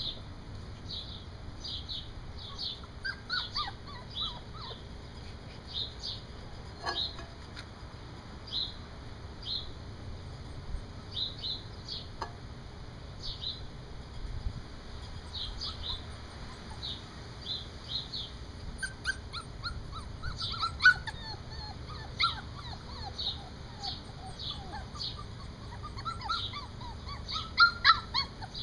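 Young standard poodle puppies yipping and whimpering in short falling squeaks, in clusters that are busiest in the second half, the loudest near the end. A bird chirps repeatedly in the background.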